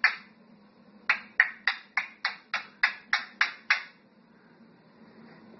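A parrot giving a rapid run of short, sharp calls, about three a second. There is one call, a pause of about a second, then about ten more, stopping about four seconds in.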